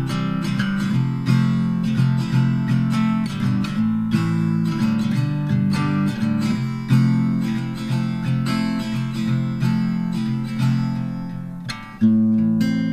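Background music: a strummed acoustic guitar playing steadily, with a new phrase starting loudly near the end.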